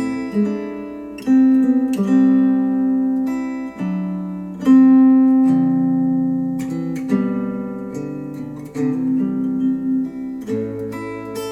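Instrumental acoustic guitar music, chords struck every second or two that ring out and fade, played back through Focal Chora 806 bookshelf speakers.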